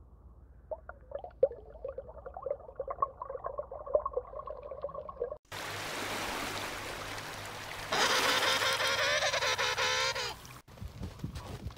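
Small waves washing over a pebble beach, then a loud gentoo penguin call held for about two and a half seconds, several pitches at once, dropping slightly at the end. Before this come faint, muffled short squeaks.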